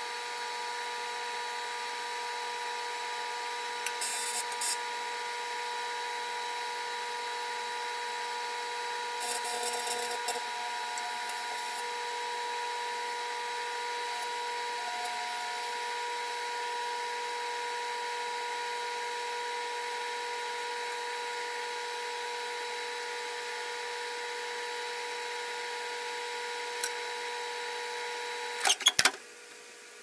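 Microwave oven running with a steady electrical hum, with brief crackles about 4 and 10 seconds in. Near the end, a few sharp clicks and the hum stops.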